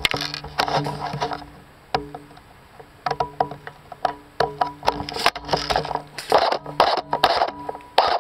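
Airsoft guns firing single shots: irregular sharp clicks and cracks, with rustling movement in between and a steady low hum underneath.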